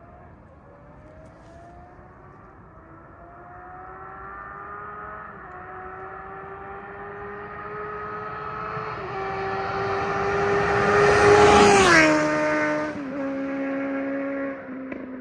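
Suzuki GSR 750 inline-four sport bike with a LeoVince exhaust, its dB killer removed, accelerating hard toward the microphone, the engine note climbing in pitch through the gears and growing steadily louder. About twelve seconds in it passes by, the pitch dropping sharply, and the sound fades as it pulls away.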